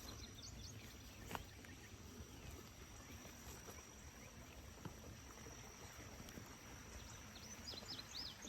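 Faint outdoor ambience with a steady high-pitched insect drone, and a single soft click about a second and a half in.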